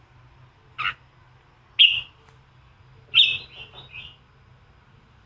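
Red-whiskered bulbul giving the fired-up 'giọng kình' (combative) song: three sharp, loud calls about a second apart, the last followed by a quick run of three or four shorter notes.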